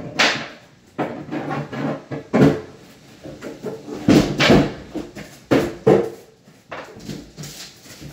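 Knocks and bumps of wooden cabinets being handled and fitted during installation, about six sharp knocks with the loudest near the middle.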